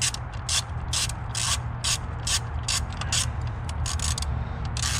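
Hand ratchet wrench clicking in short bursts, two or three a second, as it is worked back and forth, over a steady low hum.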